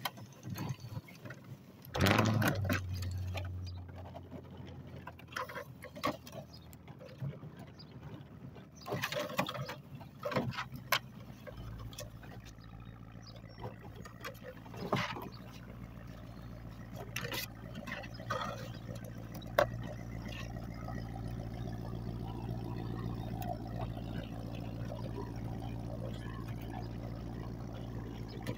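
Hoover spin sweeper being pushed over a driveway through grass clippings, its wheels and brushes rattling, with scattered knocks and scrapes. A steady low hum comes in about twelve seconds in.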